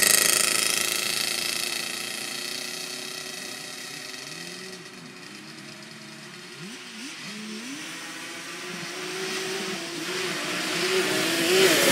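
Yamaha Banshee twin-cylinder two-stroke quad riding away. Its engine fades into the distance, revving up and down far off, then grows louder again near the end as a quad comes back toward the microphone.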